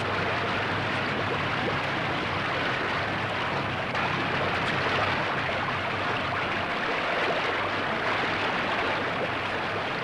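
Steady rushing of fast-flowing water, like a mountain stream, heard as a dense even hiss with no breaks.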